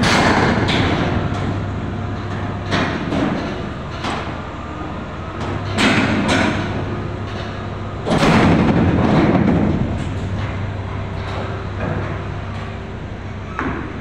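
Steel shipping container lowered by a crane spreader into a ship's hold cell guides, banging and thudding against the guides several times, loudest at the start and again about six and eight seconds in, over a steady low hum.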